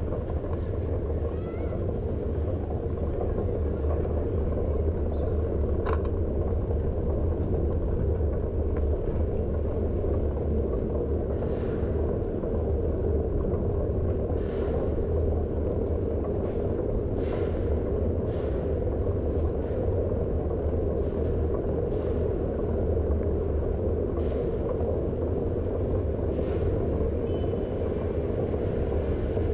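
Steady low rumble of wind and road vibration on an action camera moving along a paved street, likely mounted on a bicycle. A string of faint short ticks comes about once a second through the second half.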